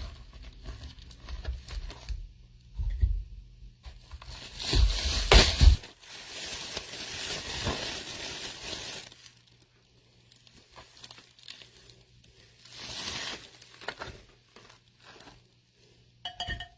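Plastic packaging from raw chicken crinkling and rustling in irregular bursts as it is handled, loudest about five seconds in, with a short clink near the end.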